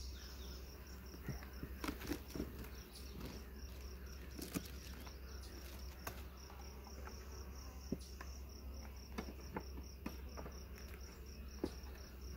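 Wooden beehive boxes and frames being handled: scattered sharp clicks and knocks as a hive box is set down and a hive tool pries at the frames, loudest about two seconds in, midway and near the end. Behind it an insect, a cricket, chirps at about five pulses a second.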